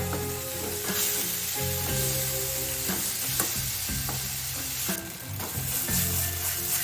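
Food sizzling in a frying pan while being stirred, with short clicks of the utensil against the pan.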